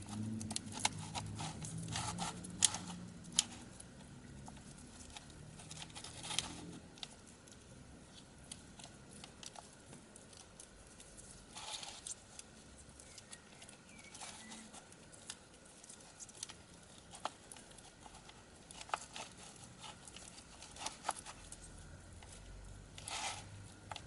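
Pineapple-covered 2x2 puzzle cube being twisted by hand: faint scraping and rustling of the rough pineapple skin as the chunks turn, with scattered sharp clicks.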